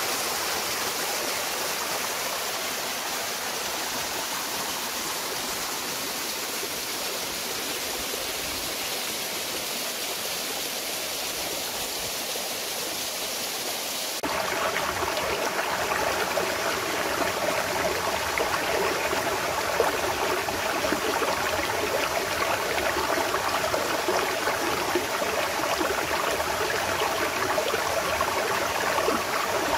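River water flowing and rushing steadily; about halfway through the sound changes abruptly to a louder, fuller rush.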